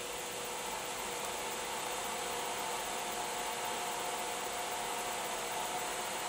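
3D printer's extruder stepper motor feeding filament at a slow, steady rate for a commanded 52 mm extrusion, a faint steady whine over the even rush of the hotend cooling fan.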